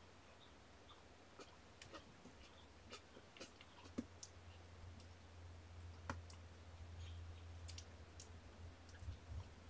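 Near-silent room with a steady low electrical hum and scattered faint, irregular clicks and scratches from young kittens shifting and crawling on a fleece blanket; two slightly sharper clicks come about four and six seconds in.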